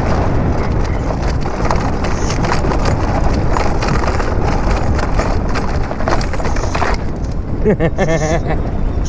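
An e-bike riding fast over rough, dry grass: a steady rumble of tyre and wind noise with many small rattling knocks as it bounces over the ground. The knocks thin out about seven seconds in, as it rolls onto smooth pavement.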